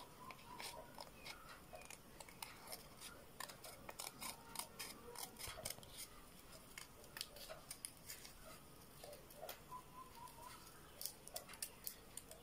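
Small hand scissors cutting through a sheet of paper: a run of quiet, irregular snips, with faint rustling of the paper between them.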